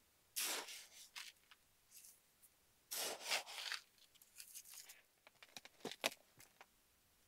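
Grit scooped and poured onto compost in a hard plastic seed tray: two pours, each a little under a second, near the start and about three seconds in, then a run of small crunches and scrapes as it is mixed through by hand.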